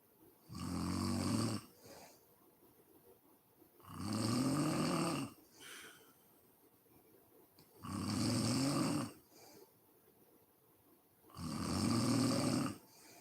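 A sleeping woman snoring: four loud snores, each lasting over a second, coming about every four seconds, with a soft breath after some of them.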